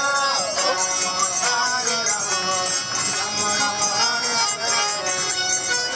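Devotional kirtan: a man singing a chant to harmonium accompaniment, with jingling percussion keeping a steady beat.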